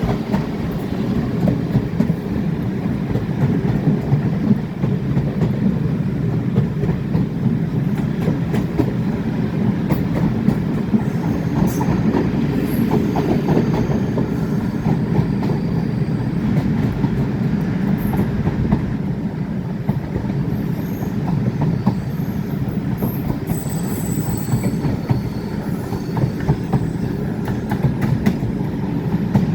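Railway passenger coach running at speed behind a steam locomotive: a steady low rumble of wheels on rail with many small clicks and knocks, and a few faint high wheel squeals now and then.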